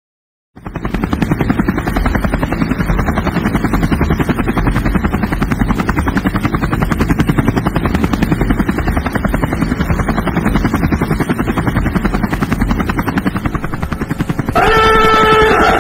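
Helicopter rotor chopping in a fast, even beat, starting about half a second in. Near the end a louder, held, horn-like chord of several tones comes in over it.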